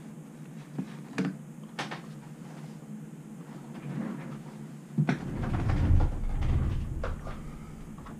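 Handling noise at a desk: a few light clicks and taps, then a knock about five seconds in followed by a couple of seconds of low rumbling, as of something bumped or shifted against the desk.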